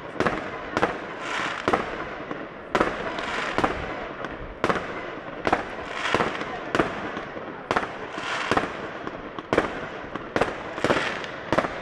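Aerial fireworks display: shells bursting with sharp bangs about once a second, each followed by a short hiss.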